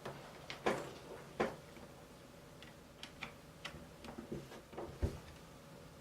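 Keys on a GH60 60% mechanical keyboard in a wood and aluminium case pressed one at a time: scattered, irregular clicks, with a deeper thump about five seconds in.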